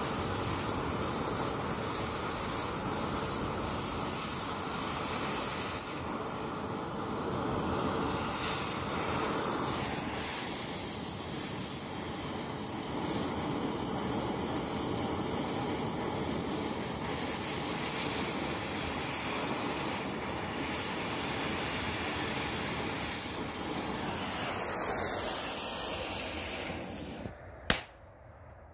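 Gas torch flame hissing steadily while it heats a stainless AR-15 gas tube to burn it through. Near the end the flame is shut off with a sharp pop and the hiss stops.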